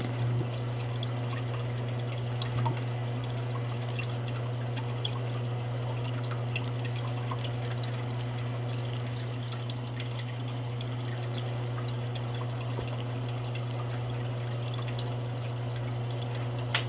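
Aquarium airline bubbling at the water surface, a steady trickling with many small pops of bursting bubbles, over a steady low hum.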